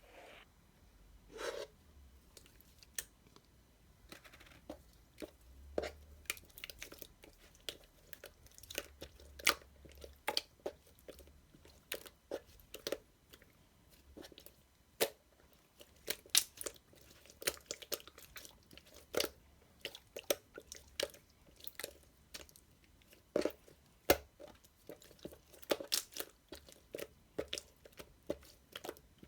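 Close-miked chewing of crunchy food: irregular sharp crunches, one to a few a second.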